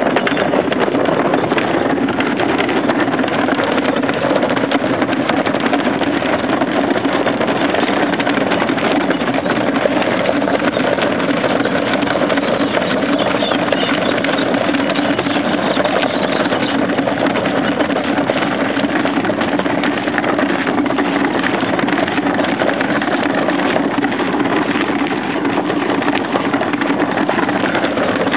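Two plastic wheelie bins being rolled up a gravel and dirt driveway, their wheels making a steady rattling rumble that does not let up.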